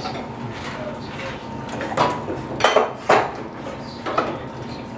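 Kitchen clatter of pots, utensils and dishes: a few sharp clanks that ring briefly, bunched around two to three seconds in, with another a little after four seconds.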